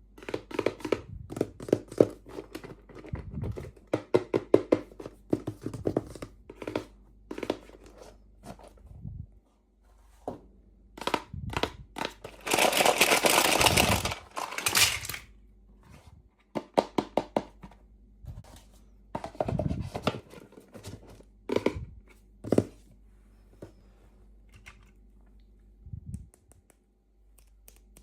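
Hands opening small toy packaging: a run of quick clicks, taps and plastic crinkling, with one louder tearing or crinkling stretch of about two and a half seconds halfway through.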